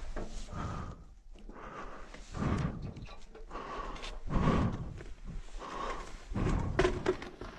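A person breathing audibly close to the phone microphone, about one breath every two seconds, with rustling of clothing and handling noise.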